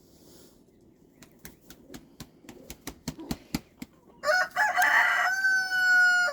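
A rooster crowing once, starting about four seconds in: a ragged, broken opening that settles into a long held note. Before it, a run of light clicks or taps.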